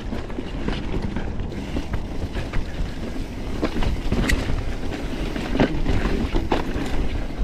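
Foes Mixer mountain bike rolling down a rocky dirt trail: wind buffeting the microphone over a steady rumble of tyres on dirt and rock, with scattered sharp clicks and rattles from the bike as it hits bumps.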